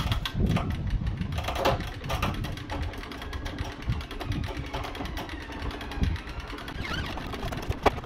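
Genie hand-cranked material lifts being wound up to raise a steel RSJ beam, their winches clicking rapidly as they turn. A sharp knock sounds near the end.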